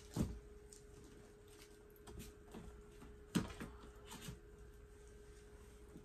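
12x12 scrapbook paper packs being handled and set down on a carpeted floor: two soft thumps, just after the start and again about three and a half seconds in, with a few lighter taps and rustles between. A faint steady hum runs underneath.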